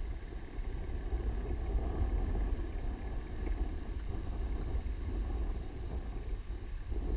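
Wind buffeting the microphone: a steady, fluttering low rumble with no distinct events.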